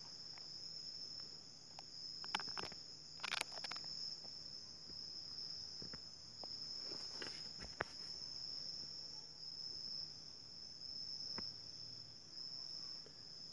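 Steady high-pitched chorus of night insects, a continuous shrill trill, with a few faint clicks.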